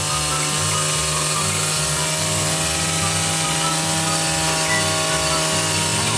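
Two-stroke brush cutter engine running steadily at speed, its spinning round disc head trimming grass along a concrete curb.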